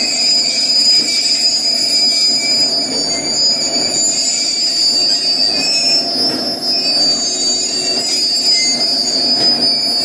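Passenger train in motion, its steel wheels squealing against the rails in steady, high, held tones over the rumble of the running coaches.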